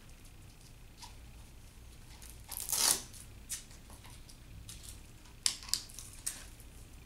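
Hook-and-loop straps on a hand splint being fastened around the forearm and wrist: one loud rip about two and a half seconds in, then a few short rasps and clicks as the straps are pressed down and adjusted.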